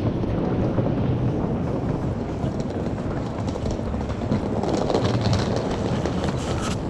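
Busy pedestrian street ambience heard while walking: a steady low rumbling noise, with a few light clicks and taps in the second half.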